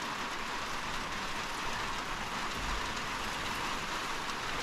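Steady rain falling: an even hiss with faint scattered patters of drops.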